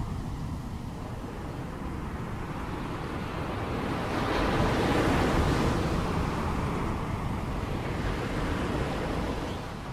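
Ocean surf washing in a steady rush, swelling louder about four seconds in and easing off near the end, with wind.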